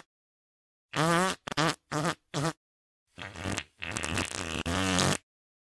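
Short bursts of a woman's wordless, wavering vocal sounds, then a longer, rougher stretch of it from about three seconds in that stops cleanly.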